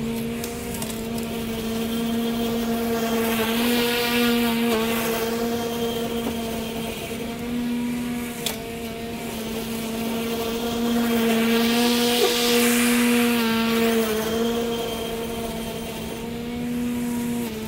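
Ego battery-electric push mower running with a steady hum while cutting grass. The sound swells twice, about four and twelve seconds in, with a louder rushing hiss, and there is a single sharp tick about eight seconds in.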